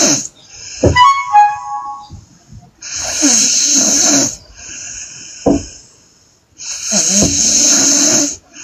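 A woman snoring loudly in her sleep: two long snores about four seconds apart, each followed by a softer breath out. About a second in, a short, loud whistling tone.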